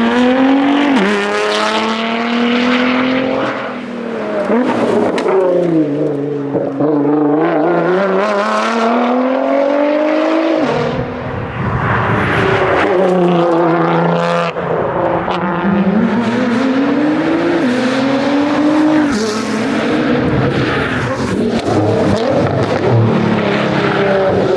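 Nissan R35 GT-R's twin-turbo 3.8-litre V6 driven hard: the engine note climbs repeatedly through the gears, drops back at each change, and falls and rises again as the car brakes and accelerates.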